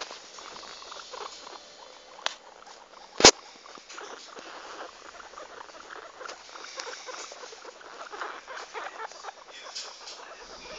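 Guinea pigs moving about: a busy patter of small clicks and rustles, with a sharp knock about three seconds in.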